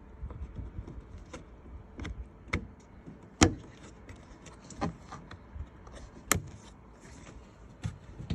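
Scattered sharp plastic clicks and knocks from handling a Fiat 500's interior door card and its door-release cable during refitting, the two loudest about three and a half and six seconds in.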